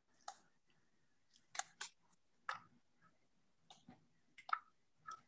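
Faint, scattered short clicks and taps, about eight or nine spread irregularly over a few seconds: handling noise from a small clay piece and a pottery tool.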